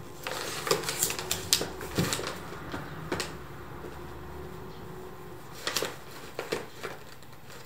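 Paper and magazines being handled and stacked, then bundled with twine: a run of crisp rustles and light knocks through the first three seconds, and a few more near the end.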